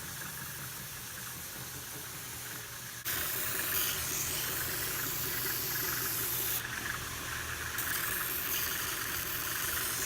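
Power sander running, grinding the edge of a laminated plywood panel flush with the seat panel beneath: a steady hiss over a low motor hum, getting louder about three seconds in.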